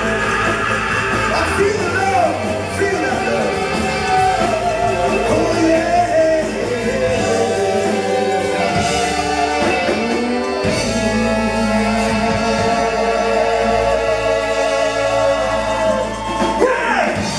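Live rock band playing with lead and backing voices singing; the bass drops out briefly around the middle.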